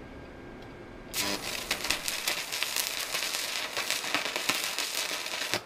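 Stick (arc) welding: the electrode's arc strikes about a second in and burns with a dense, irregular crackle for about four and a half seconds, laying a weld blob, then breaks off suddenly. A low steady hum from the running welder sits underneath before the strike.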